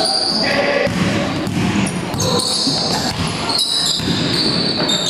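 Basketball game in play: the ball bouncing on the court, many short high squeaks, and crowd voices.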